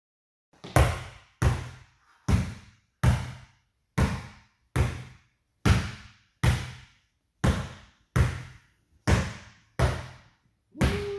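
Basketball being dribbled on a hard indoor court floor in a steady rhythm, about one bounce every 0.8 seconds, each bounce ringing briefly in the room. The bouncing starts just under a second in.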